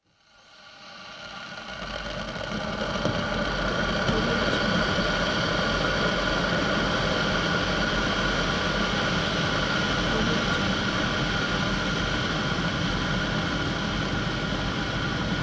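Kettle of water heating toward the boil: a steady rumbling hiss with faint steady tones in it, fading in over the first two seconds.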